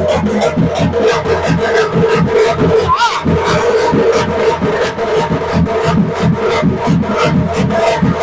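Traditional festival drums beating a fast, even rhythm over a steady held tone, with a short rising-and-falling whistle about three seconds in.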